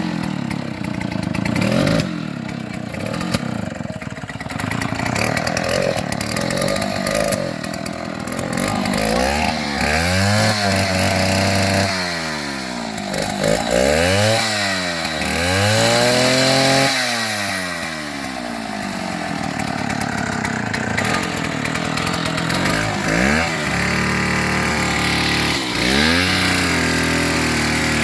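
An engine running and being revved up and down several times, its pitch rising and falling in repeated swells.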